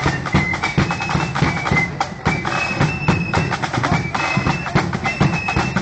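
Marching flute band playing a tune: massed flutes carry a high, stepping melody over a rapid pattern of drum strokes.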